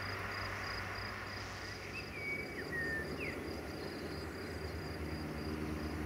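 A cricket chirping in a steady run of short, high chirps, about three a second. A short bird call comes about two seconds in, and a low hum strengthens near the end.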